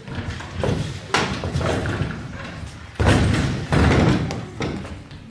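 Thumps and scraping as a wooden table and chair are shoved and bumped about on a stage floor, with quick footsteps. There are two sharp knocks, about one second and three seconds in; the second is the loudest and is followed by a scrape.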